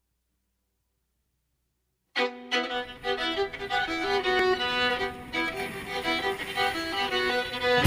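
Silence for about two seconds, then instrumental background music starts suddenly, with a fiddle carrying the tune.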